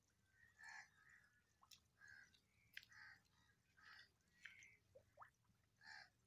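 Faint bird calls: short chirps repeated roughly once or twice a second, with a few sharp clicks among them.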